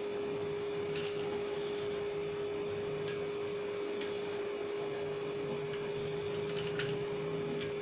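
A steady hum at a single pitch, with a few faint light ticks as dried black raisins are set into glass bowls.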